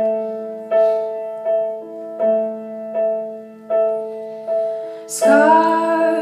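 Stage keyboard playing a piano intro: one repeated chord struck about every three-quarters of a second, each fading before the next. Near the end a woman's voice comes in singing over it.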